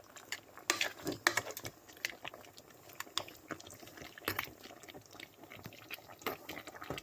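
Thick, sticky stew simmering in a pot, bubbling with scattered, irregular soft pops.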